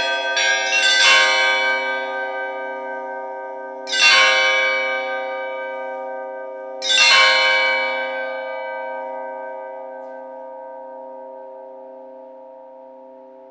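Russian church bells in a belfry: several bells struck in quick succession in the first second or so, then two louder single strokes about three seconds apart. The last stroke is left to ring out, its several tones slowly fading away.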